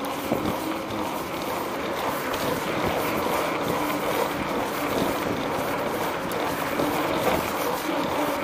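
Knobby bicycle tyre rolling on pavement: a steady rushing with a faint hum, wind buffeting the bike-mounted microphone, and scattered knocks as the bike goes over bumps and seams.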